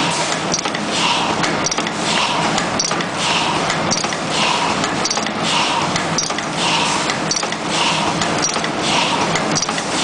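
YH-005D automatic terminal crimping machine running continuously, cycling about once every 0.8 seconds: each cycle a short sharp click with a brief hiss over a steady mechanical whir.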